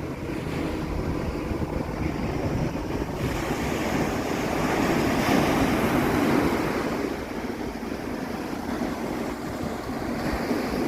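Ocean surf washing up the beach with wind buffeting the microphone; the surf swells about halfway through, then eases off.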